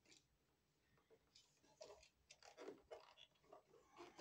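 Near silence, with faint scattered clicks and scrapes from about two seconds in, from hands working on an electrical receptacle and its wires.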